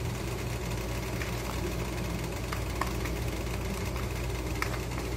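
A steady low hum, with a few faint clicks of a spoon against a small bowl as garlic butter is stirred.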